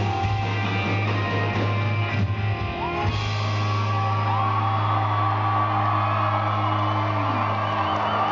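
Live country-rock band with drums and guitars: drum strikes for about three seconds, then a held chord ringing on through the rest, with sliding whoop-like calls over it.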